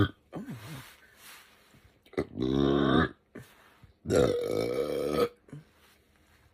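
A woman burping loudly twice, each burp a drawn-out, pitched belch of about a second, the second a little longer than the first.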